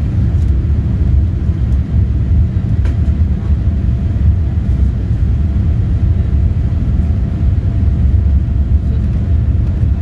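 Cabin noise of a Boeing 787-8 moving on the ground, heard at a window seat beside its Rolls-Royce engine: a steady, deep rumble.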